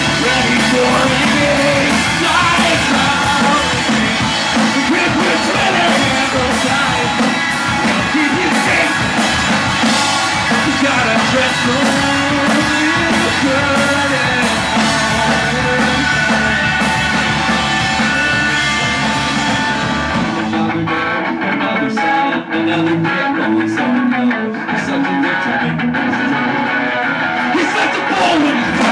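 Indie rock band playing live with electric guitars, drums and singing. About twenty seconds in the sound thins, with less bass and less cymbal wash.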